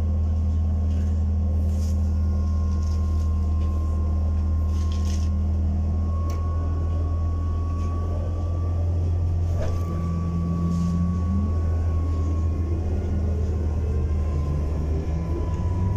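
Inside a ZiU trolleybus on the move: a steady low electrical hum under a faint whine that drifts slightly in pitch, with a few light clicks and rattles.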